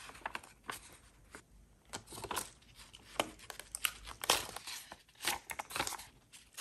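Stiff paper rustling as it is handled, with sharp clicks from hand-held hole-punch pliers punching holes for eyelets.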